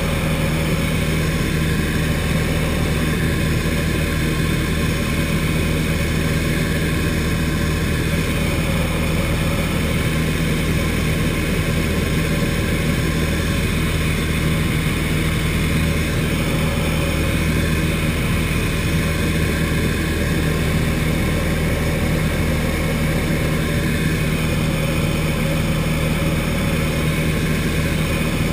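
Turner T40 light aircraft's piston engine and propeller running steadily at one constant pitch in cruise flight, heard from inside the cockpit.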